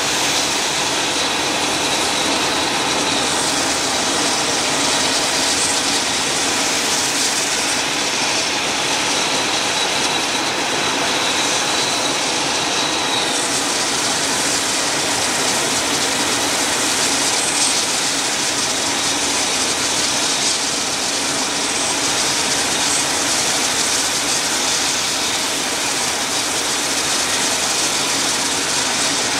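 AH-64D Apache helicopters running their twin turboshaft engines: a steady, loud rush of turbine noise. A faint high whine rides on top and fades out about thirteen seconds in.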